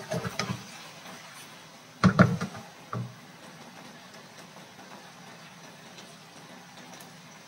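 Cast-iron skillet moved and knocking against a gas stove's grate: a short clatter at the start, a louder clatter about two seconds in and a single knock a second later. Under it, a faint steady sizzle of the soy glaze reducing in the pan.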